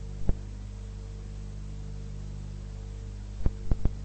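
A steady low electrical hum, with sharp clicks breaking through it: one just after the start and a quick run of four near the end.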